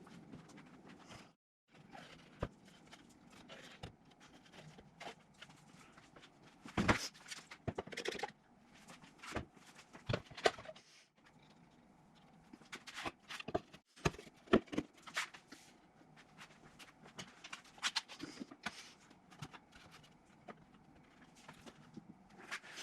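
Irregular clacks, knocks and handling sounds of power tools and plywood pieces being picked up, set down and fitted into wooden holders, with a few louder knocks about 7, 8, 10 and 14 seconds in.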